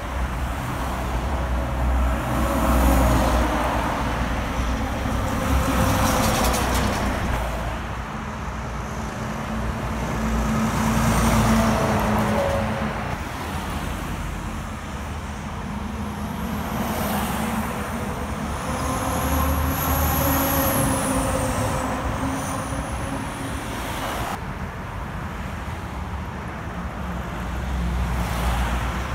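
Highway traffic going by: heavy diesel trucks and cars pass one after another, each swelling and fading with engine drone and tyre noise. A thin high whistle rises and falls partway through.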